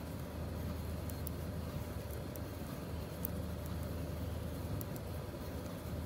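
Steady low background hum with a few faint light ticks of metal knitting needles as wool is knitted.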